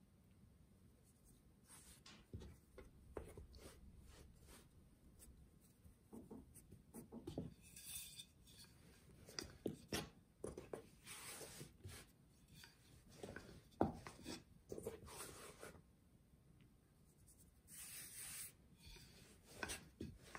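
A rolling pin rolling lavash dough on a floured wooden cutting board: soft, irregular rubbing and scraping strokes, with a few sharp knocks of the pin on the board.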